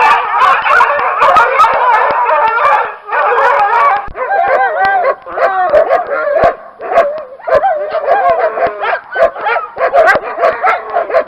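A pack of dogs barking loudly together, many barks overlapping with yelps and drawn-out, wavering howl-like cries, broken by a few short pauses.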